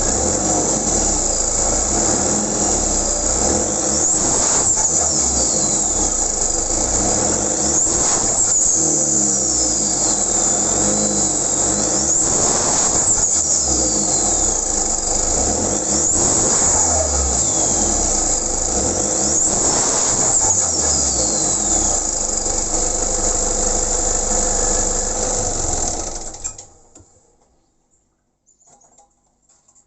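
Stock 2004 Nissan D22 Navara turbo-diesel engine being blipped about five times, roughly every four seconds. Each time the throttle snaps shut, the turbo's high whistle falls away with a flutter: compressor surge, since the turbo has no blow-off valve. The engine sound cuts off about 26 seconds in, leaving near silence.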